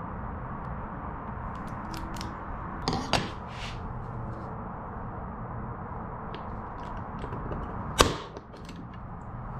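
Spring-loaded center punch firing against the polished aluminium spar: one sharp, loud snap about eight seconds in, after a couple of lighter clicks near three seconds, over a steady background hum.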